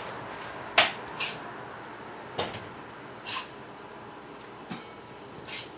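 Dishes and utensils knocking and clicking as dog food is mixed and portioned out: about six short, sharp clicks at irregular intervals, the loudest about a second in.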